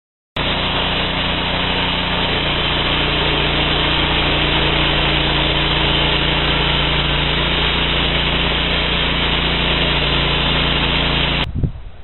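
Homemade band sawmill running under power, its engine droning steadily while the band blade saws through a mesquite log with a dense, even hiss. The sound starts abruptly just after the beginning and cuts off about half a second before the end.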